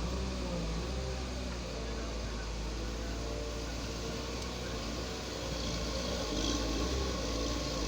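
Heavy construction machinery running steadily, with a constant low engine rumble.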